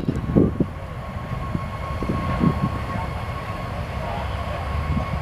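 CSX auto rack freight train rolling past, a steady low rumble of cars on the rails with a thin steady whine and a few brief knocks.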